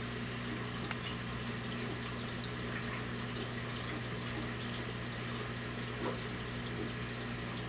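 Steady trickling of aquarium water over a constant low hum from the tank's pump equipment, with a faint knock about six seconds in.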